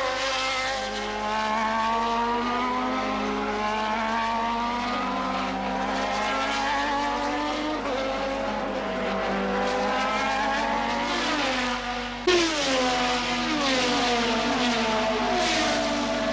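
1988 Formula One race car engines at high revs, pitch climbing steadily through the gears. About twelve seconds in the sound changes abruptly and the engine tone drops in a series of falling steps as a car shifts down.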